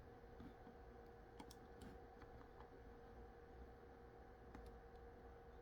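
Near silence with a few faint clicks of typing on a computer keyboard, a small cluster about a second and a half in and another near the end, over a faint steady hum.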